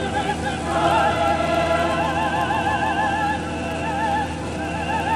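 Background music: an operatic singing voice holding long notes with wide vibrato, over a steady low drone.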